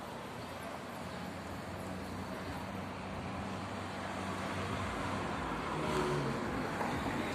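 Road traffic: a motor vehicle passing, growing louder to a peak about six seconds in over a steady background rumble.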